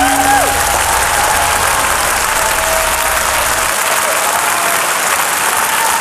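Large audience applauding steadily, with the last sustained notes of the backing music fading under it in the first moment.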